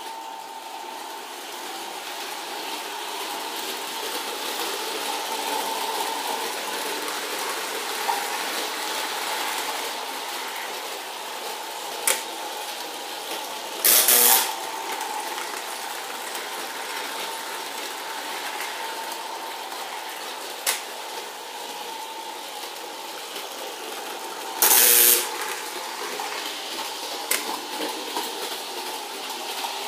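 Gilbert American Flyer 499 New Haven S-gauge electric locomotive running on sectional track, its motor humming steadily under the rumble of the wheels and cars on the rails, with a few sharp clicks. Two loud short bursts of noise break in, about eleven seconds apart.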